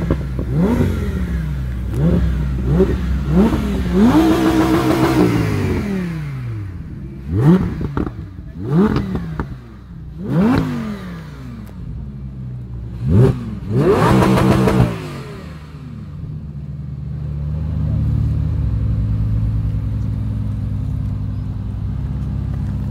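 Audi R8's V10 engine revved in about ten quick blips, two of them held at high revs for a second or so, then settling to a steady idle.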